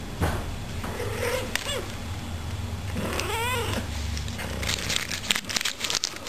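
Domestic cat meowing twice, the second call longer, rising then falling, followed near the end by a run of rapid crackling.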